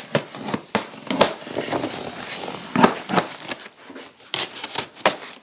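Cardboard shipping box and its packing being handled and pulled open, giving irregular sharp cracks, snaps and rustles.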